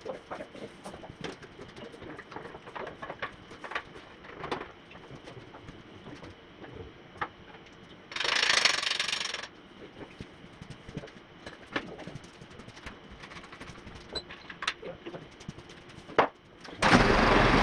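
Aerosol spray can of primer let off in one hiss lasting about a second and a half, among light clicks and knocks of handling. Near the end a loud steady noise starts abruptly.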